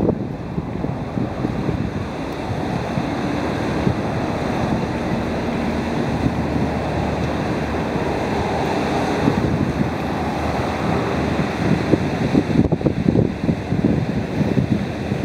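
Wind buffeting the microphone: a steady low rush that turns gusty, with irregular low thumps, about twelve seconds in.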